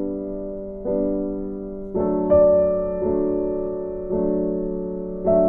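Background music of slow piano chords, a new chord struck about once a second and left to ring out.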